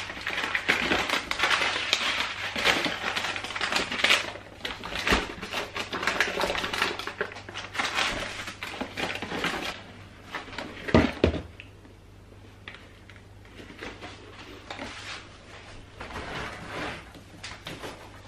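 Soup packets and small cardboard boxes rustling and clicking as they are packed by hand into plastic tubs. The handling is busy at first and then sparser, with one louder knock partway through.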